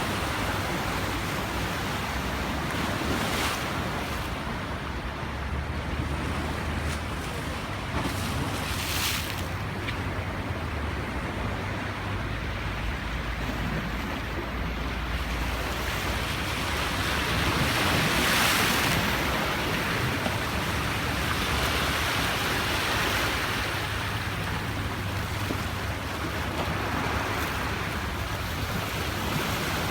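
Sea waves washing onto a beach, the surf swelling and ebbing, loudest a little past halfway, with wind buffeting the microphone as a low rumble.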